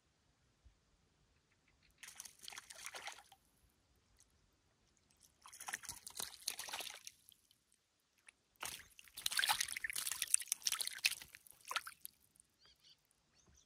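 A small hooked fish thrashing and splashing at the surface of calm water in three bouts. The last bout is the longest and loudest, as the fish is lifted out of the water.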